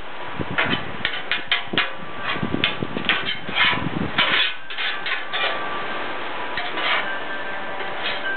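Two metal spatulas clattering and scraping on a Blackstone flat-top griddle, chopping and turning fried rice over a steady sizzle. The strokes come fast and irregular for the first half, then thin out.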